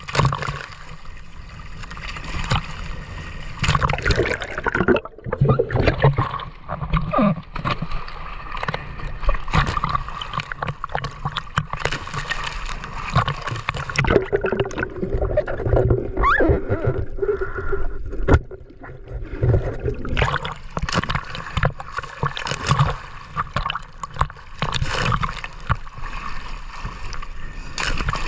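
Water splashing and gurgling, with many irregular splashes and knocks.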